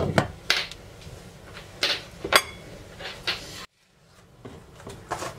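Glass lid set onto a stainless steel pot: about five short clinks and knocks over the first three and a half seconds, then the sound cuts out for a moment.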